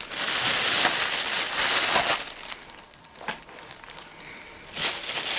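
Thin plastic bag rustling and crinkling as it is handled. It is loudest for the first two and a half seconds, then quieter with a couple of light knocks, and the rustling comes back near the end.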